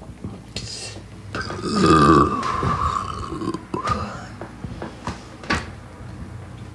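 A woman's long, loud burp, about two and a half seconds, starting a little over a second in and wavering in pitch.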